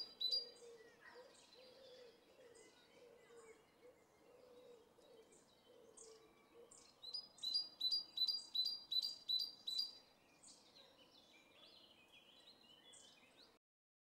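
Small birds chirping outdoors with short, high, sharp calls, scattered throughout. Midway there is a louder run of about nine quick chirps, roughly three a second. The sound cuts off abruptly just before the end.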